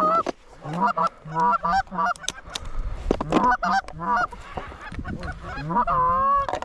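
Canada goose honks and clucks: a quick string of short, rising notes, two to three a second, ending in a longer drawn-out honk near the end.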